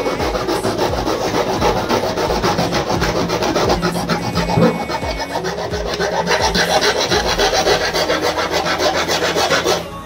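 A hand-held hacksaw blade sawing back and forth through the plastic casing and circuit board of a keypad mobile phone, a fast, rasping stroke after stroke. The sawing stops just before the end as the phone is cut through.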